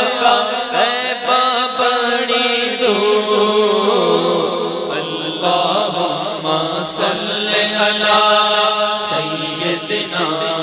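Chanted vocal music: a single voice sings a slow melody with gliding, ornamented notes over a steady low drone.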